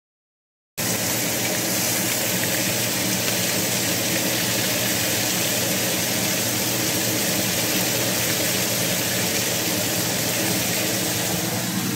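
Elk testicle sizzling in oil in a frying pan: a steady hiss with a low hum under it, starting abruptly about a second in.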